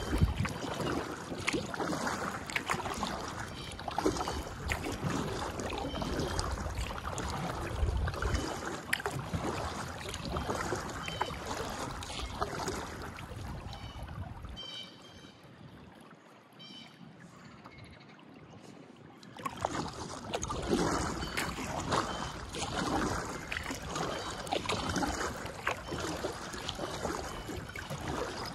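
Kayak paddle strokes in calm water: the blades splashing in and water dripping and trickling off them. The paddling stops for a few seconds past the middle while the kayak glides, then starts again.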